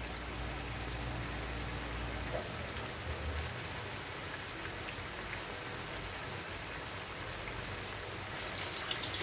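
Bamboo shoots and chicken simmering in broth in a frying pan, a steady fine bubbling and crackling. A low hum beneath it stops about two seconds in, and the crackling grows sharper near the end.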